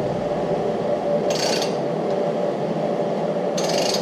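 A ratchet on the crankshaft bolt of a Gen 3 HEMI V8 turning the bare engine over by hand, to bring the intake lifter up to peak lift for degreeing the camshaft: two short bursts of ratchet clicking about two seconds apart, over a steady background hum.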